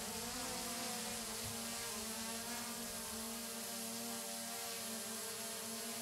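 DJI Mini 3 Pro drone hovering close by, its propellers giving a steady buzz of several held tones over a soft hiss. At this range it reads about 60 to 61 dBA on a sound meter.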